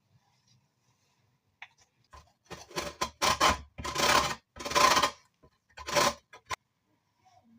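About six scraping, rasping strokes in quick succession, each about half a second long, from food being worked in the kitchen. They start about two seconds in and stop about six and a half seconds in.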